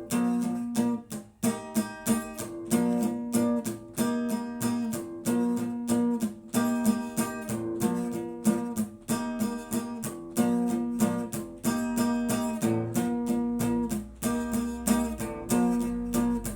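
Instrumental music: a strummed guitar with steady, even strokes and sustained chords, with no singing.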